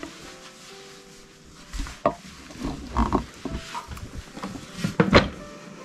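A baby doll being handled and set into a wooden high chair: a series of knocks and bumps against the wood, in clusters about two seconds in and three seconds in, and loudest about five seconds in. Faint background music underneath.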